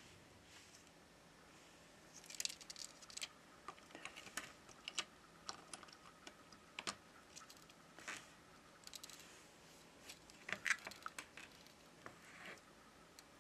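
Faint, irregular clicks and taps of Samsung Galaxy S20 Ultra parts being handled: the motherboard, flex cables and small metal pieces knocking against the phone's frame. A small cluster of louder clicks comes a little past the middle.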